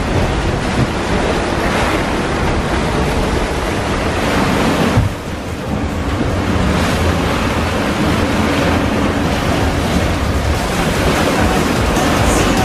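Strong wind buffeting the microphone over waves rushing and breaking against a sailing catamaran in rough, lumpy seas. There is one louder surge about five seconds in, followed by a brief lull.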